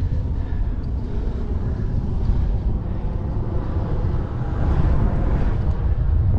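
Wind rumbling on the microphone with tyre and road noise from an electric-assist bicycle riding at speed.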